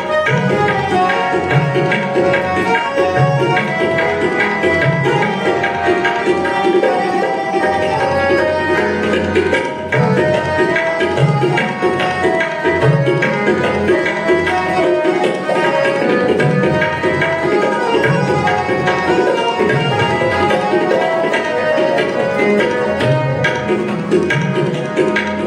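Instrumental passage of Sikh kirtan: two harmoniums playing the melody together over a tabla keeping a steady rhythm, with deep bass strokes from the tabla's larger drum.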